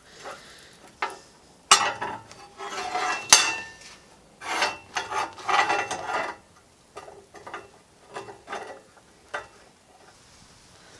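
Beeswax being rubbed onto a hand-forged steel fire poker to finish it against rust: irregular bursts of rubbing and scraping on the steel with a few light metallic clinks, thinning out in the last couple of seconds.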